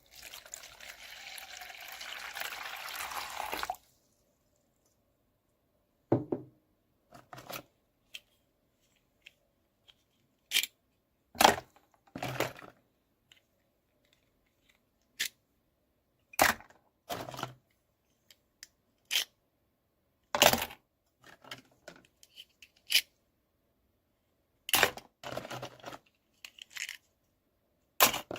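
Small plastic toy pieces and packaging being handled: a rustling noise that grows louder over the first few seconds and cuts off suddenly, then a scattered series of sharp clicks and taps with dead silence between them.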